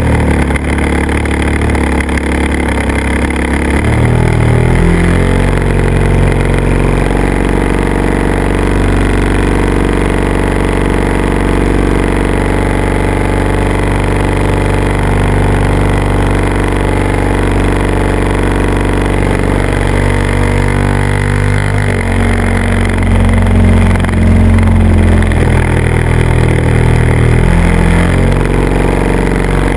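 Motor and propeller of a small camera-carrying aircraft running loud and steady in flight. Its pitch steps up and down a few times as the throttle changes.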